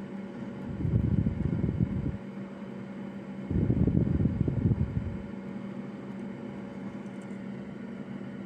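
Steady hum of fan-driven bench equipment at an electronics repair bench. Two louder bursts of rushing air of about a second and a half each come through it, one about a second in and one about three and a half seconds in.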